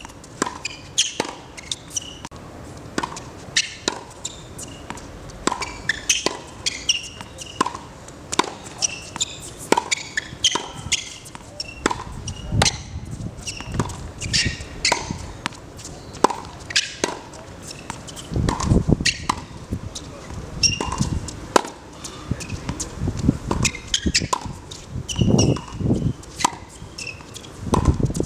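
Tennis ball struck by rackets and bouncing on a hard court in a steady rally, sharp hits coming about once a second.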